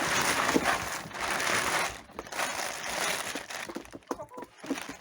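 Rustling and crumpling as food scraps are tipped out for the hens: a long stretch at the start and a shorter one about halfway through, then scattered small clicks.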